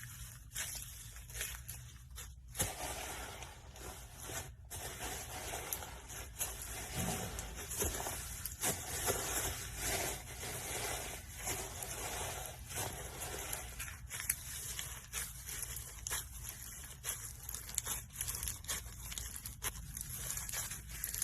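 Slime being squeezed and stretched by hand: a dense, irregular run of small sticky clicks and pops.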